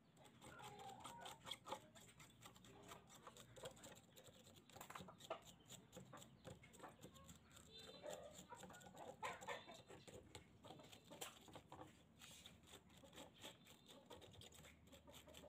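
Faint, irregular scraping and ticking as crusted rust and old paint are chipped off rusty steel scissors.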